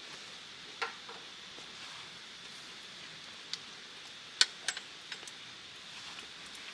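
A few scattered sharp clicks and taps over a steady faint hiss; the loudest click comes a little after the midpoint, followed by two or three lighter ones.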